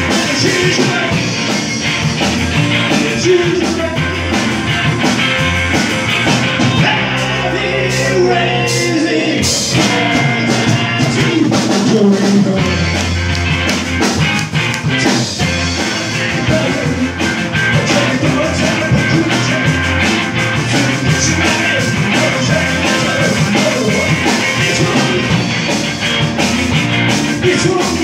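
A rock band playing live: two electric guitars, an electric bass and a drum kit, with a man singing lead.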